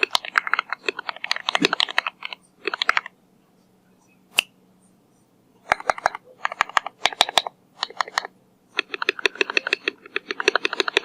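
Typing on a Keychron Q2 aluminium mechanical keyboard with Akko CS Lavender switches: quick runs of key clacks with short pauses, and one longer pause about a third of the way in, broken by a single keystroke.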